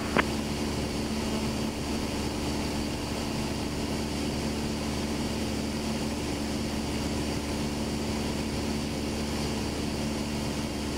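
Steady drone of a Cessna's piston engine and propeller in flight, heard from inside the cockpit, with a short click just after the start.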